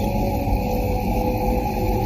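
Dark ambient space drone: a steady low rumble with a few held tones above it, unchanging throughout.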